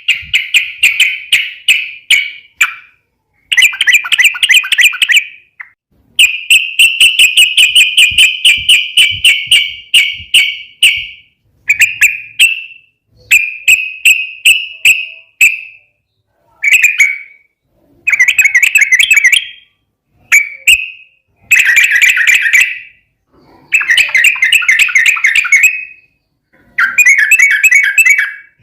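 Yellow-vented bulbul (trucukan) singing: bursts of rapid, bubbling repeated notes, each phrase one to five seconds long, with short pauses between them.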